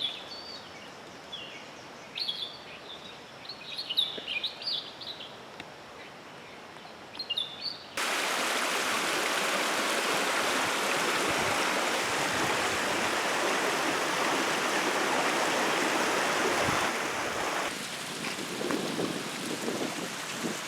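Birds chirping in short high calls over a quiet outdoor background for the first several seconds; then, after an abrupt change, a loud steady rushing noise like running water or wind, which drops somewhat near the end.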